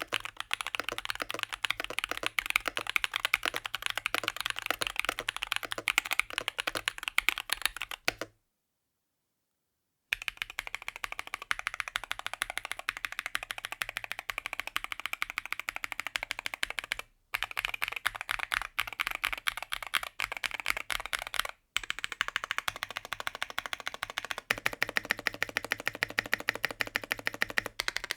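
Fast, continuous typing on a Rexus Daxa M61/M64 60% mechanical keyboard, a dense run of key clacks. It stops dead for about two seconds a third of the way in, and drops out briefly twice later on.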